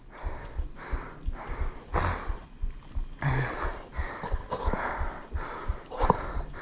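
Heavy, rhythmic breathing of a person jogging, about two breaths a second, with footfalls thudding on the forest floor.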